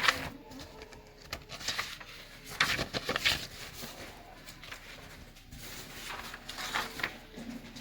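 Sheets of paper rustling and being leafed through, with a few sharp taps and knocks, as printed race result sheets are searched.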